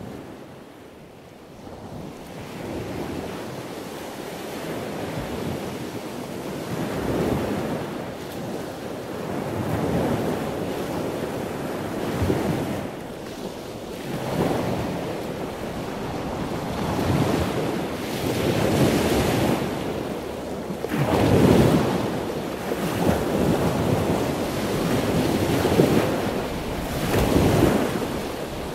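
Sea surf: waves washing in with a rushing noise that swells and ebbs every two to three seconds, fading in at the start.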